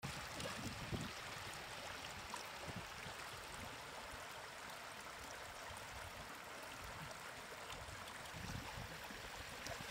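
Steady rush of flowing water, with a few brief low bumps.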